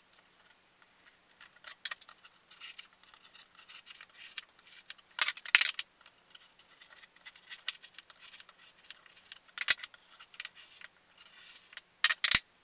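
Wooden boards and small parts handled on a plywood workbench: faint scratching and clicking, with louder sharp knocks and scrapes about five seconds in, near ten seconds, and a short cluster near the end.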